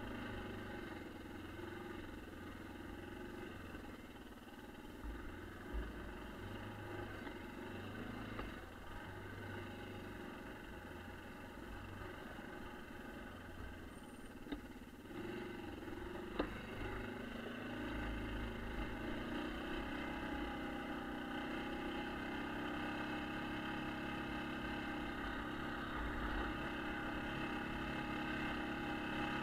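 1996 Yamaha Kodiak ATV's single-cylinder four-stroke engine running steadily as the machine rides along, with a few sharp knocks, and a little louder from about halfway through.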